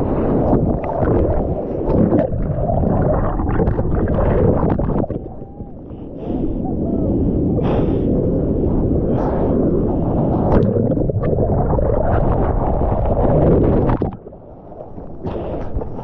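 Rushing, churning surf water around a surfer's GoPro, muffled through its waterproof housing, with gurgling water on the microphone. It drops away briefly about five seconds in and again near the end.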